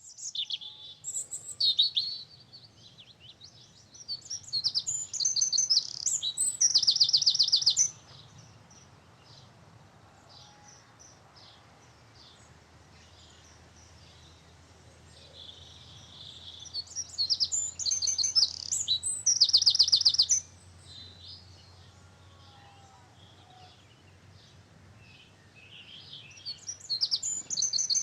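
A songbird singing: loud, high-pitched, rapid trilled phrases a few seconds long, repeated with pauses of several seconds between them.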